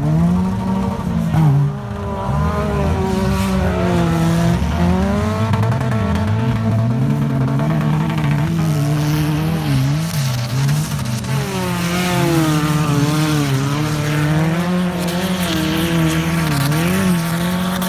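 Several old wreck-race cars running hard on a dirt track, their engines revving up and down so the pitch keeps rising and falling.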